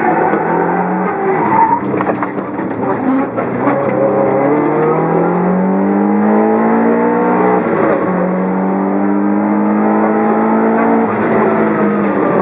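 Subaru Impreza GC8's turbocharged flat-four engine heard from inside the rally car's cabin, accelerating hard: the engine note climbs steadily, drops with an upshift about eight seconds in, climbs again, then falls as the driver lifts off about eleven seconds in.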